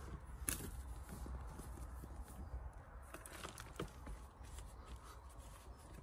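Hands pushing and firming crumbly compost into a plant pot around a squash seedling: faint rustling and scraping with a few soft ticks, over a steady low rumble.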